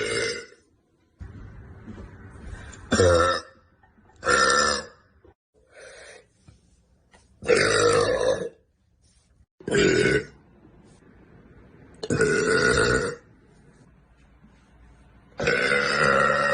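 A woman belching loudly, about seven burps one after another. Some are short and some are drawn out to a second or more, with short pauses between them.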